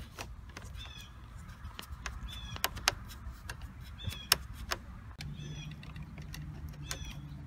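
Phillips screwdriver working a screw out of a metal terminal on a car fuse box: irregular sharp clicks and scrapes of the tool tip on the screw head, loudest about three and four seconds in. Short high chirps recur every second or two, and a low steady hum comes in about five seconds in.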